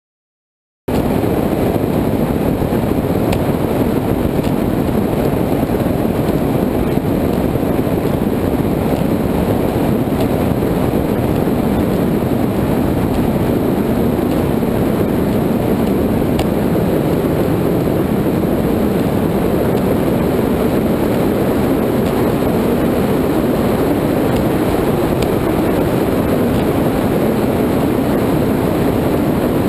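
Offshore powerboat running at speed on open water: a loud, steady rush of wind buffeting the deck-mounted camera, mixed with engine and hull-on-water noise. It starts suddenly about a second in and holds steady.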